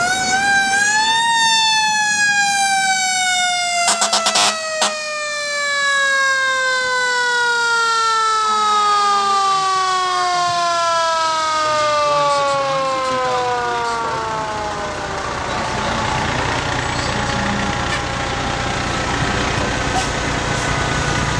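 Fire truck's mechanical siren spins up to a high wail in the first second, then slowly winds down in pitch as it coasts for over ten seconds and fades out. There are a few short, sharp cracks about four seconds in, and the fire trucks' engines run underneath.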